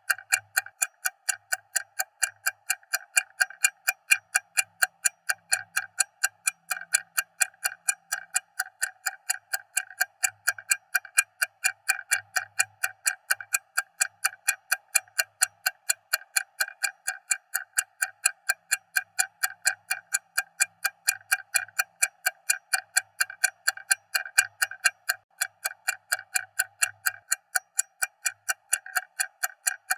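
Stopwatch ticking loudly and evenly, several crisp ticks a second without pause.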